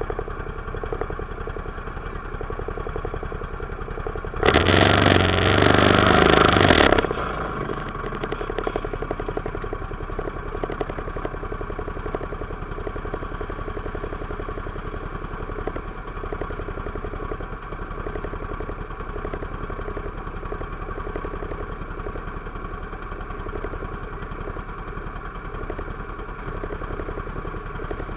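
ATV engine idling steadily close by, with a loud rush of noise lasting about two and a half seconds, starting some four and a half seconds in.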